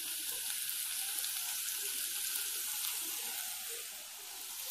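Diced chayote sizzling softly in an aluminium pot, cooking in its own juices over a low flame with no water added: a steady hiss that eases slightly near the end.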